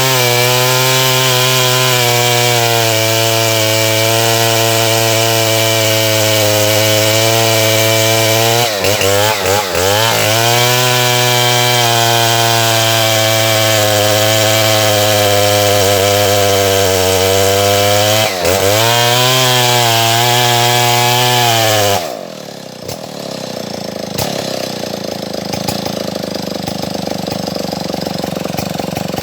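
Stihl MS070 single-cylinder two-stroke chainsaw running at high revs, cutting wood, with the revs dipping briefly twice. About 22 seconds in it drops to a lower, quieter idle.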